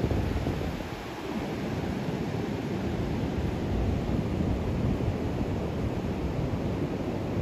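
Ocean surf breaking and washing up a sandy beach, with wind rumbling on the microphone.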